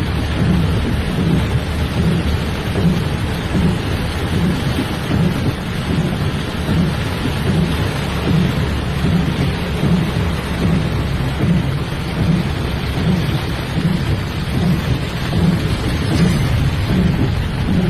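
Loud, steady rush of heavy rain and fast floodwater, with a deep rumble that pulses about twice a second.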